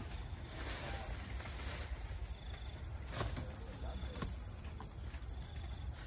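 Steady, high-pitched drone of insects in an orchard. It is overlaid by light rustling and a couple of faint snaps, about three and four seconds in, as rambutan clusters are picked by hand.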